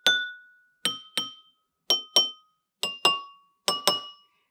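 A pencil tapping the rims of a row of bowls filled with water to different levels: about nine light strikes, mostly in pairs, each ringing briefly with a clear tone. The pitch steps lower from pair to pair as different bowls are struck, because each bowl holds a different level of water.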